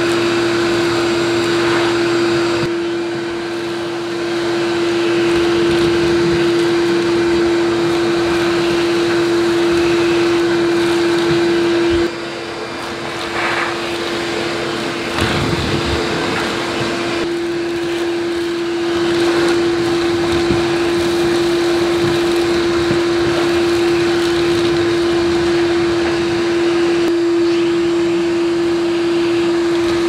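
Ridgid shop-vac running with a steady high hum as its hose nozzle sucks up dust and debris. About twelve seconds in, the sound drops and is quieter for a few seconds before returning to full strength.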